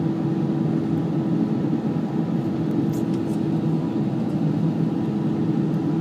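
Steady cabin noise of a jet airliner taxiing, heard from a window seat: the engines running at taxi power with a steady low hum.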